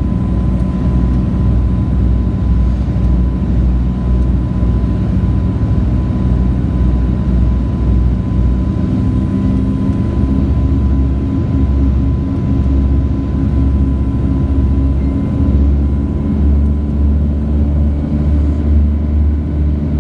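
Lisunov Li-2's twin radial engines running steadily in flight, heard inside the cabin. About halfway through the engine note changes, and the low rumble grows stronger in the last few seconds.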